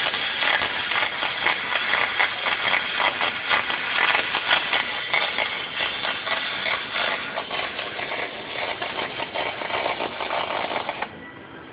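MIG welding arc from a Lincoln spool gun feeding aluminum wire: a steady, dense crackle that cuts off sharply near the end as the trigger is released.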